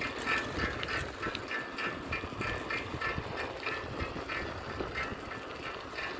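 Bicycle squeaking in a regular rhythm, about two to three squeaks a second in step with pedalling, over a low rumble of wind on the microphone and tyres on the road.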